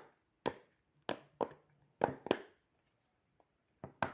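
Silicone bubbles of a dimple fidget toy being pressed and popped: a run of about eight short, sharp pops at an uneven pace, roughly two a second.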